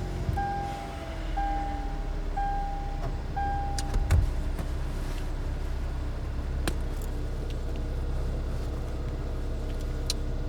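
Car's warning chime beeping about once a second, six times, then stopping. A thud follows about four seconds in, and after it comes a steady low hum of a car.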